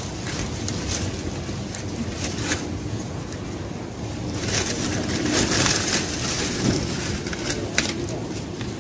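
Wind buffeting the microphone, with plant leaves rustling and a few sharp snaps as plants are pulled up by hand; the noise swells about halfway through.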